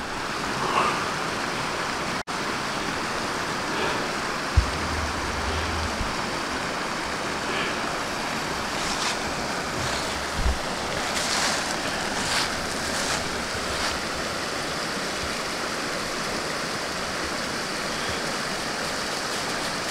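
Small mountain creek rushing over rocks and spilling down low cascades: a steady rush of water. A brief low rumble comes in about five seconds in.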